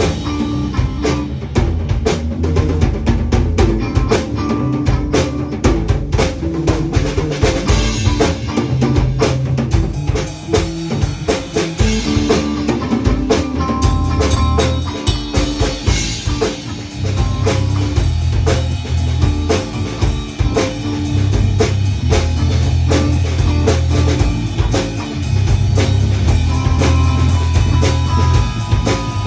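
Rock drum solo on a full drum kit: fast, dense snare, bass drum and cymbal hits without a break. Low sustained instrument notes, changing every few seconds, run underneath.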